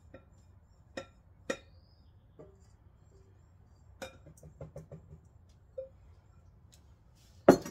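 Clinks and knocks of a ceramic mixing bowl against a stainless steel stand-mixer bowl as butter and sugar are emptied from one into the other. There are a few sharp clicks, a quick run of small knocks about four seconds in, and a louder knock near the end.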